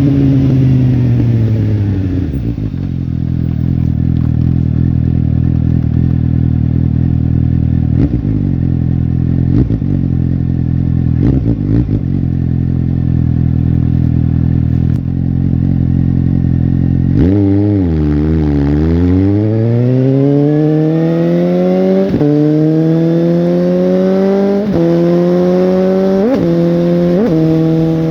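Suzuki GSX-S750's inline-four engine running: the revs fall away and settle to a steady drone, then from about two-thirds of the way through the bike accelerates hard, the pitch climbing and dropping sharply at each of four quick upshifts.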